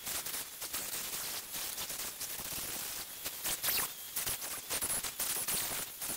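Petrol chainsaw cutting into a wooden stump, a rough, uneven crackling noise that keeps running.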